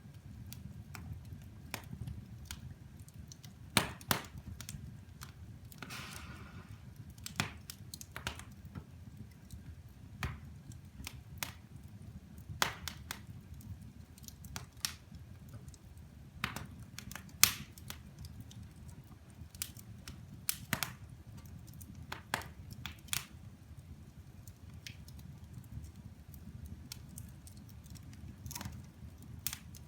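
Wood fire burning in a fireplace: irregular sharp crackles and pops, a few much louder than the rest, over a low steady rumble, with a brief hiss about six seconds in.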